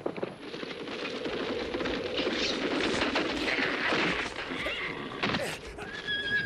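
A horse's hooves pounding and the horse neighing as it rears up, with a high, drawn-out whinny starting near the end.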